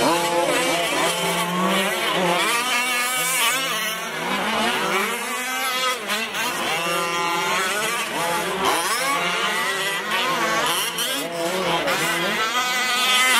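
Several 1/5-scale Losi 5ive-T RC trucks racing, their small two-stroke gas engines revving up and down over one another in constantly rising and falling pitch.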